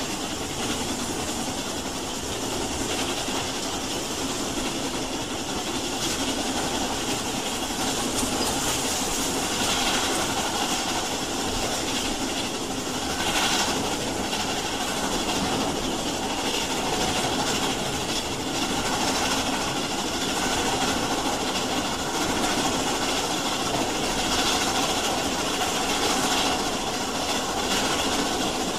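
Steam train running on the line: a steady, continuous rush of noise with no clear beat.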